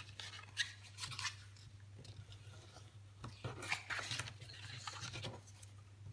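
Stiff black photo card rustling and scraping as it is handled, slid and turned over on a cutting mat, in several short strokes, with a bone folder rubbing along a crease near the end.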